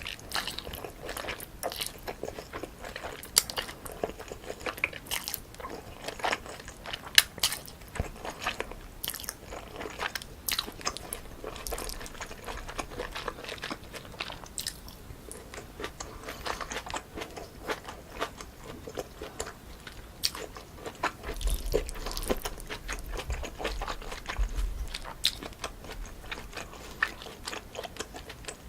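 Close-miked eating sounds of spicy cold chewy noodles tossed with crisp cucumber and fruit: irregular crisp crunching and chewing, with many sharp bites.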